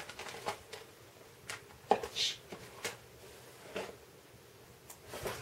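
Items being handled and rummaged through in a plastic zip-lock bag: a few light clicks and soft rustles, scattered about once a second.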